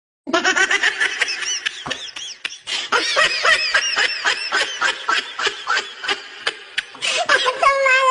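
White domestic goose honking in a rapid series of calls, several a second, with a longer held call near the end.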